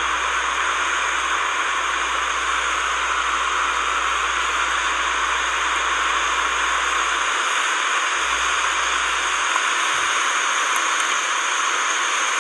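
A loud, steady hiss that does not change, with a faint low rumble underneath that drops out briefly twice in the second half.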